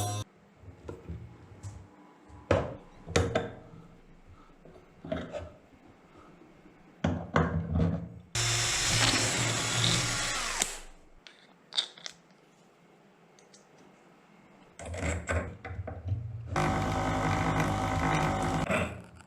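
A homemade mini table saw's 775 DC motor runs in two spells of a few seconds each, with short bursts between them. Scattered knocks and clatter of handling come in the gaps.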